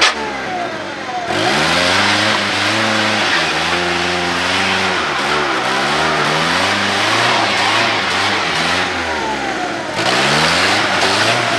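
Ford Ranger pickup's engine revving up and down again and again as its rear wheels spin in mud, the pitch rising and falling several times over a steady rush of noise, with a harder surge about ten seconds in.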